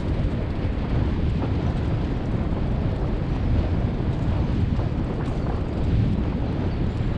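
Steady low rumble of a dog-pulled rig's wheels rolling over a dirt track, mixed with wind buffeting the microphone.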